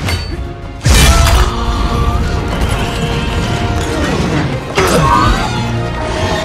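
Film battle soundtrack: a music score mixed with loud crashing impact effects, one hit about a second in and another near five seconds.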